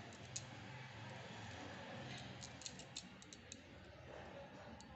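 Faint handling sounds of fingertips rolling a tiny vegetable chop into shape: soft rubbing with scattered small clicks, which come thickest between about two and three and a half seconds in, over a low hiss.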